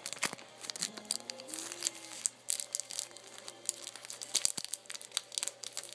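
Mail packaging being torn and handled: irregular crinkling and tearing of paper and plastic wrapping, with many quick crackles.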